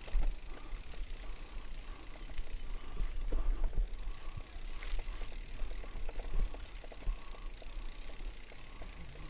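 Mountain bike rolling down a bumpy dirt trail: the rear freehub buzzes in spells while coasting, with the chain and bike rattling over the bumps and a low rumble throughout.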